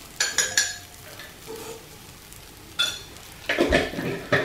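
A metal fork and a plastic spatula scraping and clicking against a non-stick frying pan as pancakes are broken up and turned, in short bursts near the start, around three seconds in and just before the end. Between the strokes the pancakes are frying in the pan.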